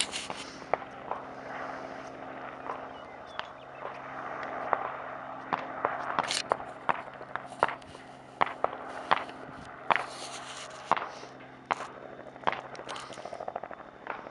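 Gunshots: irregular single sharp cracks, roughly one or two a second, over a steady mechanical hum.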